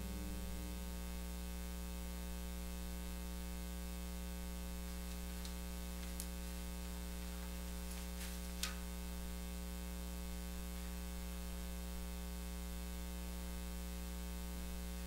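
Steady electrical mains hum with faint static, with a few faint clicks near the middle, one slightly louder than the rest.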